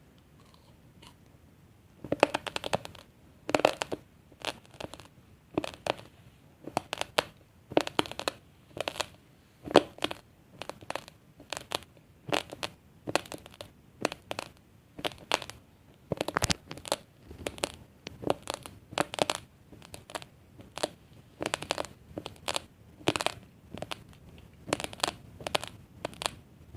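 Raw basmati rice grains crunched between the teeth in close-up chewing, starting about two seconds in and continuing as a steady series of sharp crunches, roughly one or two a second.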